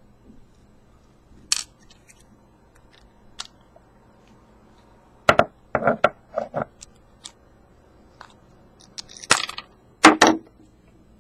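Small metal lock parts and tools clicking and clattering while a pin-tumbler lock is taken apart and its tailpiece screw removed: a few single taps, a quick run of clacks about halfway through, and the loudest clatters near the end.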